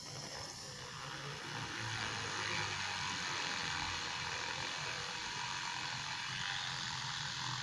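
Homemade mini drill, a small 12 V DC motor with a drill bit held in a brass coupling, running with a steady whir as the bit bores into a stick of wood. It grows a little louder about two seconds in and then holds steady.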